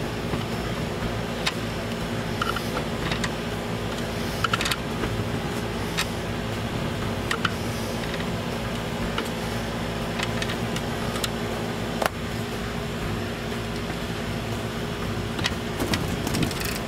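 Steady mechanical hum, like a fan or other running machine, with scattered light clicks and clinks of parts and tools being handled.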